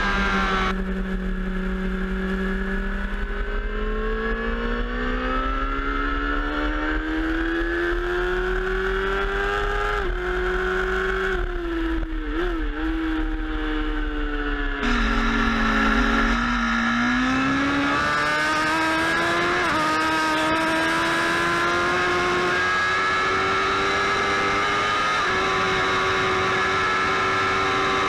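Racing motorcycle engine heard from an onboard camera, running at high revs with its pitch slowly rising and falling. The sound changes abruptly about a second in and again around 15 and 17 seconds in, as one riding clip gives way to the next.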